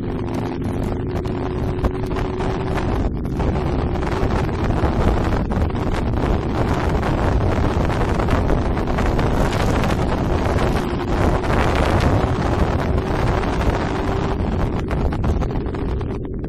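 Wind buffeting a helmet-mounted camera's microphone while riding a motorcycle, with the bike's engine running steadily underneath; the engine's steady tone stands out during the first few seconds, then the wind rush covers most of it.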